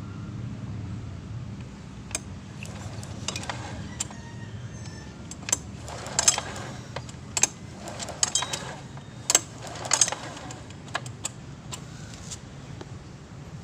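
Scattered sharp metallic clicks and short rattles, as of tools or small metal parts being handled, over a steady low rumble.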